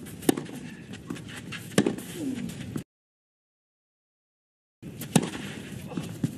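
Tennis rally on a clay court: sharp racket-on-ball hits about a second and a half apart, over a low crowd hum. The sound cuts out completely for about two seconds in the middle, then two more hits follow.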